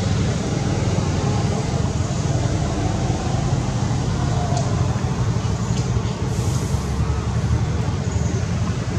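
Steady low rumble of outdoor background noise, with no distinct animal calls.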